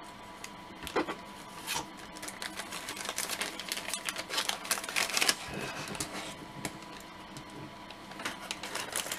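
Light clicks and taps of a small plastic G.I. Joe action figure and its accessories being handled and set down on a cutting mat, mixed with the crinkle of a clear plastic bag, busiest in the middle.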